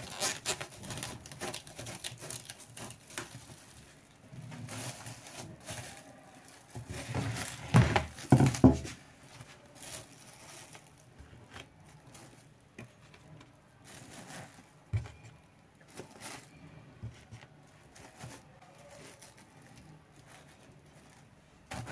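Plastic cling film rustling and crinkling as it is handled and spread over a plastic storage box, with light taps and knocks against the box. The handling is loudest about eight seconds in, then turns quieter and sparser.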